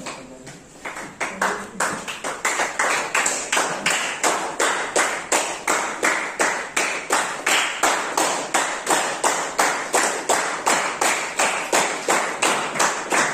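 A small group clapping in unison to a steady beat, about three to four claps a second.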